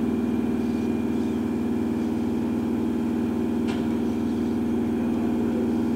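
Fire engine's diesel engine running steadily at close range, one even engine note throughout. A single short click comes about halfway through.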